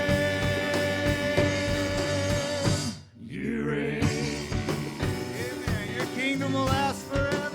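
Live church praise band playing a worship song between sung lines, with drums under held chords. The music drops out suddenly for a moment about three seconds in, then picks up again.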